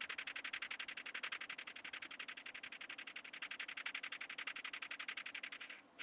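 TIG welding arc on a steel tube frame, buzzing in a fast, even pulse of about a dozen beats a second; the arc stops near the end.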